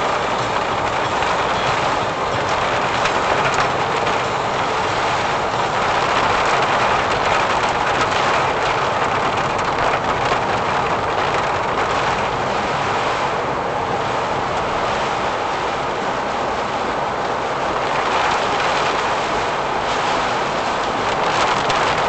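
Steady noise inside a Daihatsu Mira Cocoa driving through typhoon rain: tyres running on a waterlogged road and rain on the car, heard through the dashcam in the cabin.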